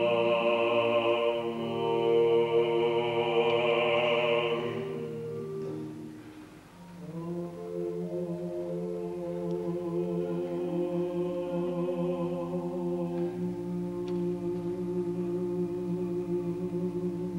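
A male choir singing unaccompanied in a large church, with a strong solo voice carrying over the sustained chords for the first five seconds. About six seconds in the sound fades briefly, then the choir comes back with low, held chords.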